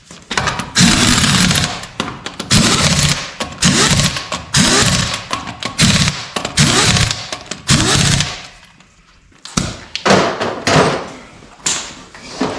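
Impact wrench hammering in about eight short bursts, each spinning up and winding down, with brief pauses between and a longer pause about two-thirds of the way through.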